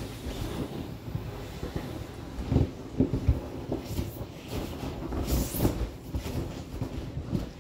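Inflated vinyl of a large inflatable whale creaking and squeaking under a person's weight and hands, with irregular rubs and soft thumps as he shifts on it.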